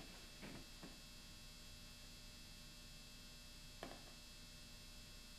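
Near silence: a faint steady hum, with a few faint short taps about half a second in, again near one second, and once near four seconds in.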